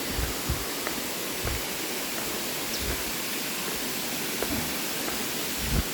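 Waterfall rushing: a steady, even hiss of falling water, with a few soft low thumps, the loudest near the end.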